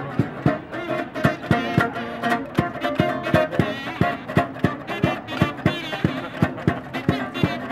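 Street buskers playing live: an acoustic guitar strummed to a steady, sharp beat of about two to three strokes a second, with a wavering lead melody over it.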